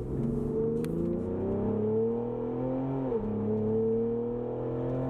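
Twin-turbo 3.0L EcoBoost V6 of a Ford Explorer ST with a Borla ATAK exhaust accelerating hard at full throttle, its pitch climbing steadily, then dropping at an upshift about three seconds in before climbing again.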